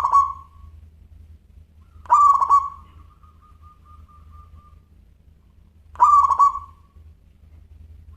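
Zebra dove (perkutut) singing: three cooing phrases, one at the opening, one about two seconds in and one about six seconds in, the middle one trailing into a long faint held note.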